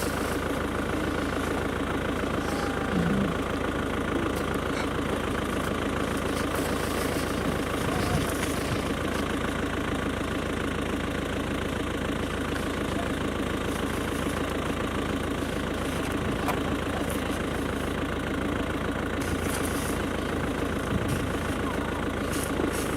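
A vehicle engine idling steadily and evenly.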